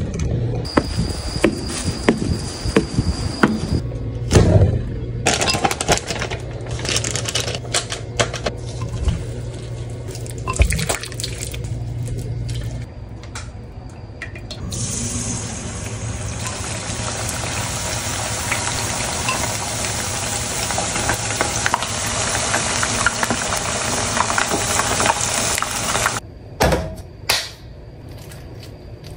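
Kitchen handling noises, with scattered clicks and knocks. Then, about halfway through, a steady loud sizzle of chicken pieces deep-frying in oil in a pot for about ten seconds. It cuts off suddenly shortly before the end, leaving a few clicks.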